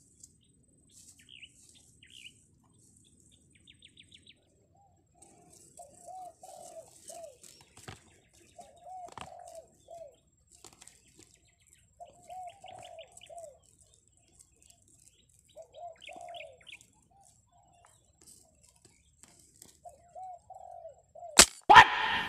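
Wild doves cooing over and over in short low calls, with small birds chirping now and then. Near the end, a sudden loud crack of the air rifle firing, followed by a second sharp sound.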